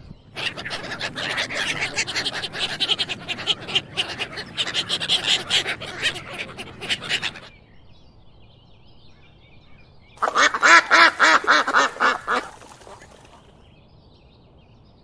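Ducks quacking: a long run of rapid quacks, then a short pause and a louder burst of quacking about ten seconds in.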